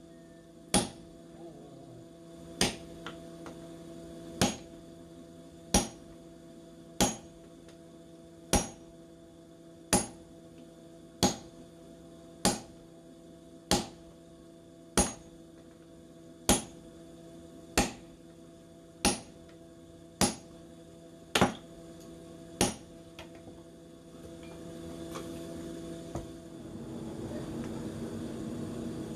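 Hand hammer striking a steel blank on an anvil, single heavy blows about one every one and a half seconds, each with a short metallic ring, over a steady hum. After about 23 seconds the hammering stops and a rough rushing noise rises.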